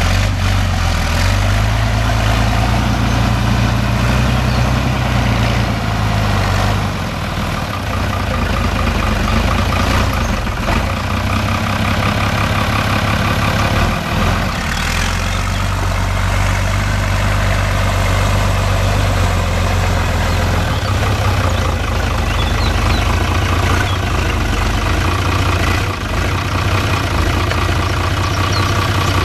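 Fiatagri 110-90 DT tractor's six-cylinder diesel engine running while the tractor moves and lifts round bales with its front loader. Its note rises a little about a second in and drops back around seven seconds in, then holds steady with small changes in speed.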